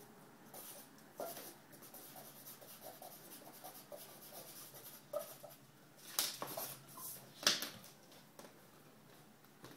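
Drawing tool scratching on paper in short, irregular strokes, with a few louder strokes about six to seven and a half seconds in.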